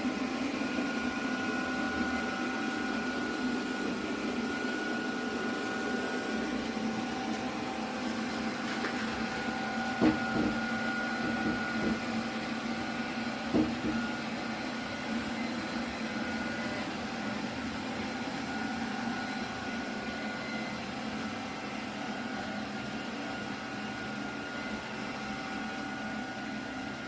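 Robot vacuum running with a steady motor hum and whine, with two brief knocks about ten and thirteen seconds in.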